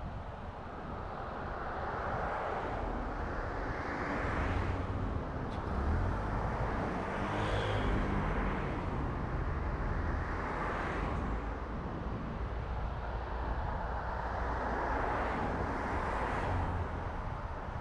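Steady road and engine noise of a car driving, with about four oncoming vehicles swelling past and fading. A motorcycle is among them, about seven seconds in.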